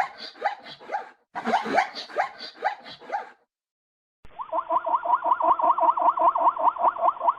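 Zebra calling with its bark-like whinny: two runs of rapid, hoarse yelps, then after a short pause a longer, faster series of rising yips, about six a second.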